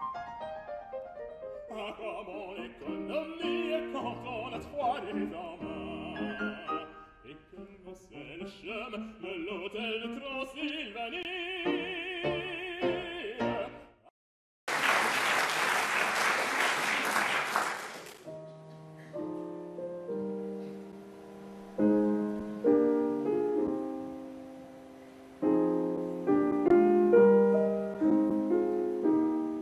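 Operatic singing with vibrato over piano accompaniment breaks off about fourteen seconds in. After a brief pause come a few seconds of applause. A Steinway grand piano then plays solo, in clear separate notes and chords.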